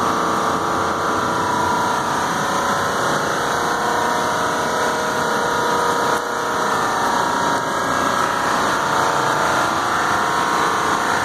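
Large commercial air-conditioning equipment running in its mechanical room: a steady, loud machine drone with several held tones riding on it.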